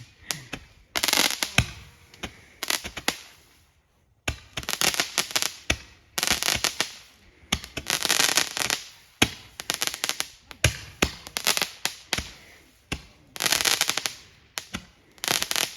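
Consumer fireworks going off in a run of crackling bursts: about ten clusters of rapid sharp pops, each under a second or two long, with short gaps between them.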